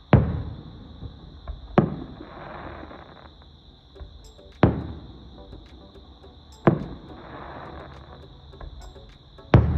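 Aerial fireworks bursting with sharp booms, five in all, about two seconds apart, each trailing off in a rumble. A crackling hiss follows two of the bursts.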